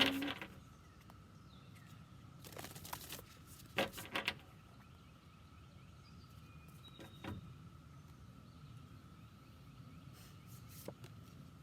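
Tarot cards being shuffled and handled: a few short bursts of card rustling, heard over a faint steady high-pitched tone.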